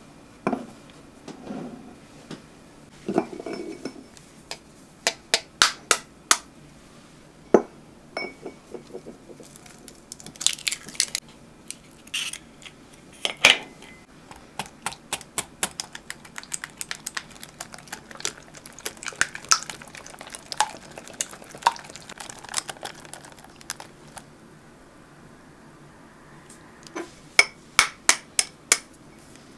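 A kitchen utensil clinking and scraping against a bowl in irregular taps while ingredients are mixed. A quick run of clinks comes near the end.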